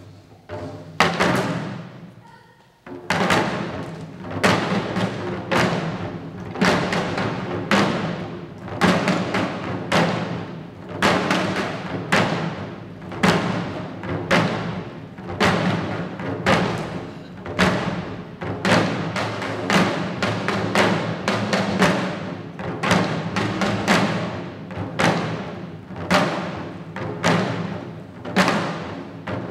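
Shishi odori (deer dance) drums, small taiko worn at the dancers' chests, beaten in a steady rhythm of about one strike a second. The drumming dips briefly about two seconds in, then resumes.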